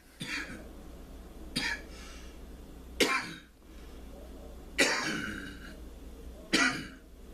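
A person coughing: five harsh single coughs spaced about one and a half to two seconds apart, a cough brought on by inhaling burning cannabis smoke.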